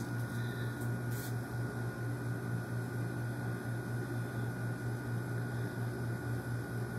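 Steady low hum with a thin high tone held above it, unchanging throughout, and one faint light tick about a second in.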